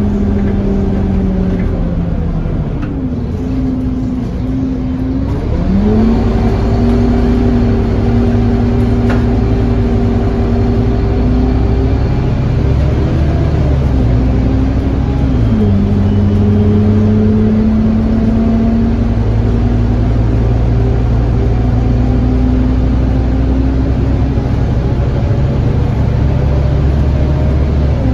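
Scania N230UD bus's five-cylinder diesel engine heard from inside the passenger saloon, pulling under acceleration. Its pitch dips briefly a few seconds in, jumps up, climbs steadily, drops with an automatic gear change about fifteen seconds in, then climbs again.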